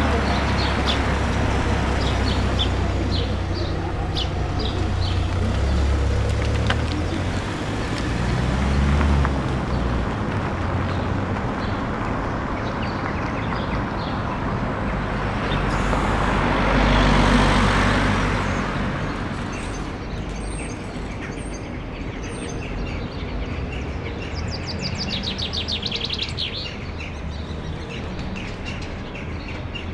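Roadside outdoor ambience: a low traffic rumble in the first third, then a single vehicle passing, swelling and fading about halfway through. Small birds chirp throughout, with a quick trill near the end.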